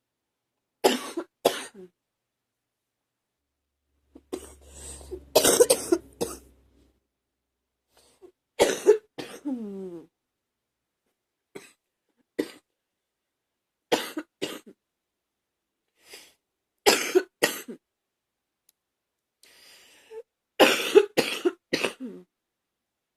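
A person coughing hard in short bouts of two or more harsh coughs, a few seconds apart. Longer bouts come about five seconds in and near the end, and one bout about nine seconds in trails off into a falling voiced sound.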